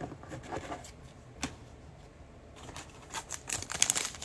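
Trading cards being handled and shuffled by hand: soft slides and light taps, with one sharper click about a second and a half in. Rustling grows busier near the end.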